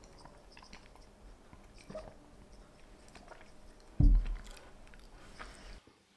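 Faint chewing and small handling clicks, then a ceramic mug set down on a wooden table with one dull thump about four seconds in, the loudest sound here.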